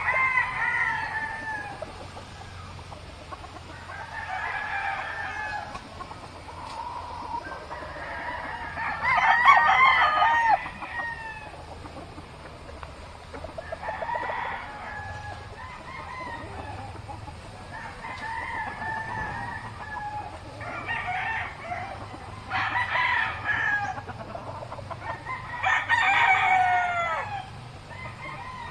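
Roosters crowing over and over, about nine crows from several birds at different distances, the loudest about nine seconds in and again near the end.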